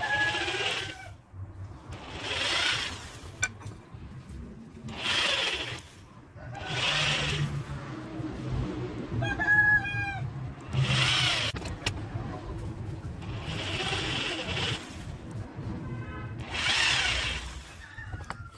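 Electric hand drill with a thin twist bit boring small holes into a wooden block: seven short runs of about a second each, a couple of seconds apart.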